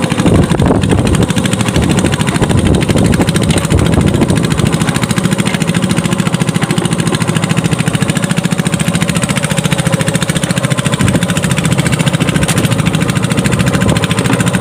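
Small boat engine running steadily, a continuous loud chugging with no change in speed.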